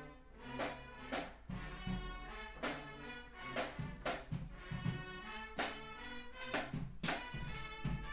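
Music with a steady beat, about two strokes a second, over a bass line.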